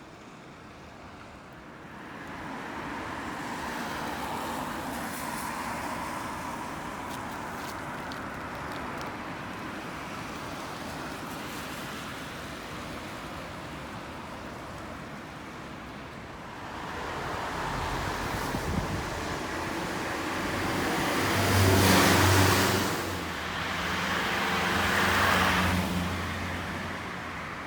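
Strong typhoon wind blowing steadily, then in the last third vehicles pass close by, engine and tyre noise swelling twice to the loudest points and fading.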